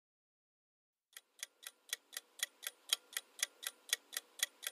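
Clock-ticking sound effect of a quiz countdown timer, marking the time left to guess. It starts about a second in and ticks about four times a second, growing louder.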